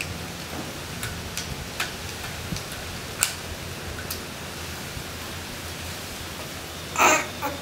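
Steady hiss with scattered faint clicks, and a short, louder sound about seven seconds in.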